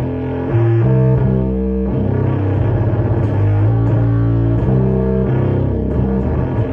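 Electric bass played through a Death By Audio Crossover Fuzz pedal: a line of distorted, sustained notes, changing pitch every half second to a second.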